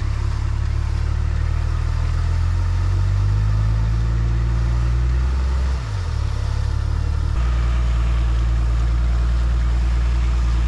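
A 4x4's engine running steadily at low revs. Its note dips and glides about six seconds in, then settles into a steady lower drone.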